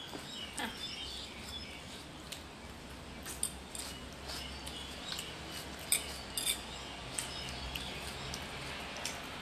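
Metal fork clinking against a plate while eating: a string of short, light clicks scattered irregularly, the sharpest about six seconds in.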